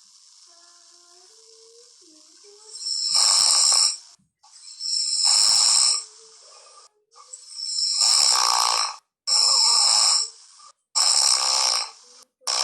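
A man snoring: about five loud snores, each around a second long, coming every one and a half to two seconds, starting about three seconds in.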